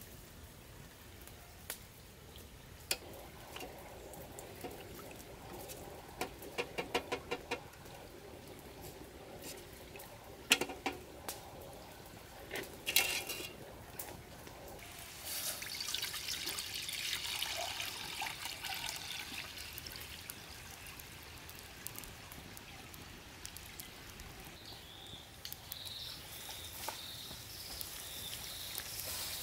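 A thin liquid mixture stirred and sloshed in a stainless steel bowl with a wooden spoon, with a quick run of taps and a few sharp knocks of the spoon against the bowl. Later comes a longer hiss of moving liquid, and near the end the mixture is poured into a wok.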